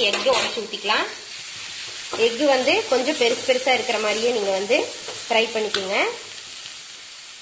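Slotted steel spatula stirring and scraping an onion, tomato and egg fry around an aluminium kadai, the metal squeaking in bending scrapes over a steady frying sizzle. The scraping comes in three spells and stops about six seconds in, leaving the sizzle.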